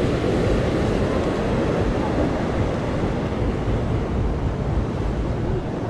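Wind buffeting the microphone over the steady wash of ocean surf, with faint voices of people nearby.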